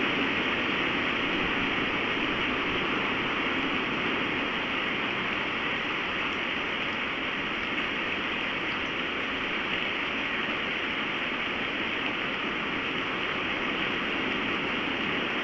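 Storm wind blowing hard and steadily, a constant rushing noise with no gusting breaks.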